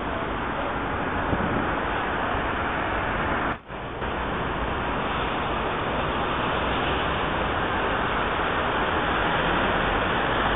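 Steady urban road-traffic noise, with a brief drop-out about three and a half seconds in.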